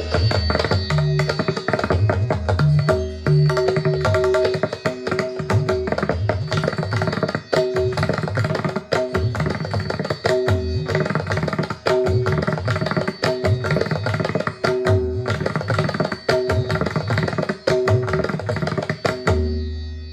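Indian classical instrumental music with fast tabla drumming over steady held tones, played through a Tribit Stormbox Pro portable Bluetooth speaker. The tabla comes in abruptly at the start.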